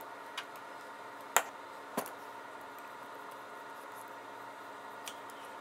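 A few sharp clicks and taps from handling a small plastic tube of face primer, the loudest about a second and a half in, over a steady background hum.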